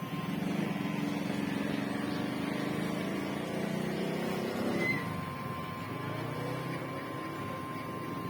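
Kemei electric hair clipper running with a steady buzz and a thin whine while cutting hair. It gets a little quieter about five seconds in.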